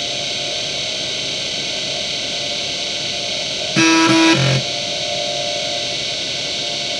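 Seagate ST9145AG hard drive spinning with a steady whine and hiss. A little before halfway comes a loud buzzing burst, less than a second long and broken into a few parts, as the heads seek while the BIOS detects the drive.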